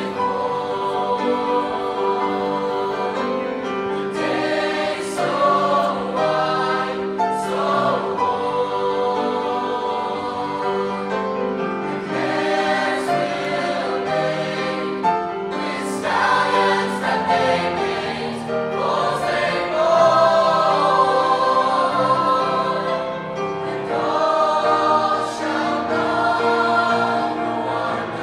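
Teenage mixed-voice choir singing in sustained chords, accompanied by grand piano.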